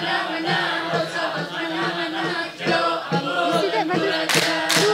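A group of Saman dancers chanting in unison, punctuated by sharp hand claps and body slaps, the loudest just before the end.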